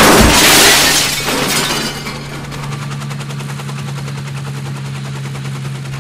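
A loud crash, like something smashing, that dies away over about two seconds, then a steady low hum.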